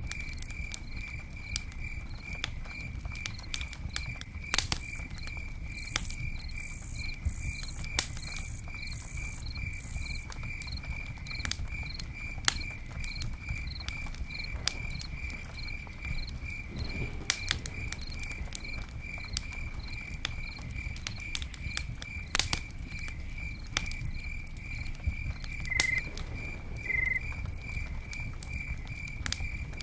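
Campfire crackling, with irregular sharp pops over a low rumble of burning. A cricket chirps steadily in an even, repeating pulse.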